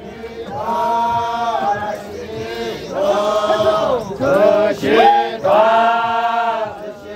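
A group of Naga men chanting together for a traditional dance: long held notes in unison that swell and fall away, four phrases in all, the third shorter and broken.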